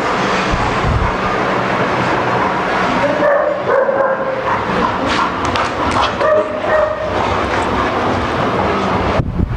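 German Shepherds barking, with brief high whines about three and a half and six seconds in.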